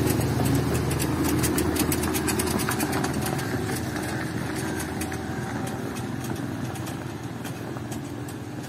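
Peugeot 206 hatchback driving slowly past on a rough dirt lane and pulling away, its engine hum and the crunch of its tyres on the gravel fading steadily.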